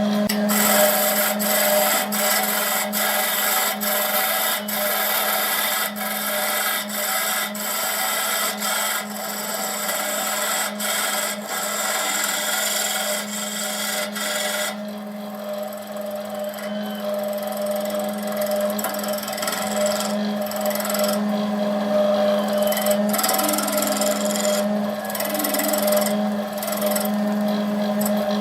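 Wood lathe running with a steady motor hum while a tool rubs and scrapes against the spinning wood-and-epoxy blank, with regular ticks through it; the scraping eases off somewhat about halfway through and comes back near the end.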